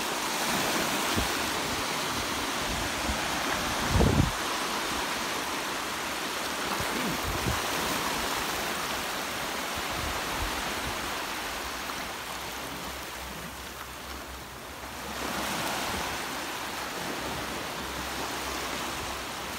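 Small waves washing in over shallow water at the shoreline, a steady rush of surf that eases off and swells again about fifteen seconds in. A brief low thump about four seconds in is the loudest moment.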